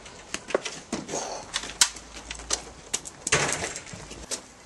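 Footsteps on a paved path: irregular light taps and scuffs of two people walking.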